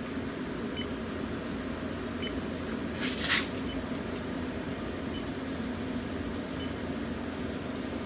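Electronic refrigerant leak detector ticking with short, faint, high beeps about every one and a half seconds, its slow idle rate showing no refrigerant found, over a steady low hum. A brief rushing noise about three seconds in.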